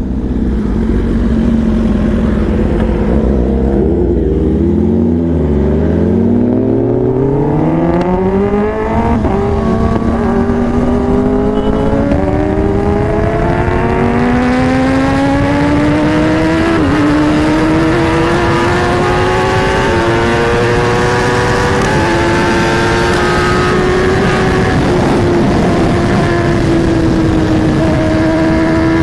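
Kawasaki Ninja ZX-10R inline-four engine heard from the bike itself. It drops in pitch as it slows for a U-turn, then accelerates hard through the gears from about five seconds in, its pitch climbing with a short dip at each upshift. Wind noise builds as the speed rises.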